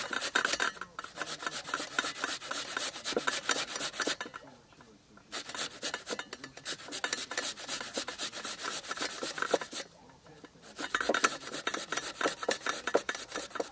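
A piece of ginger being grated on a hand grater: quick rasping strokes in three runs, pausing briefly twice.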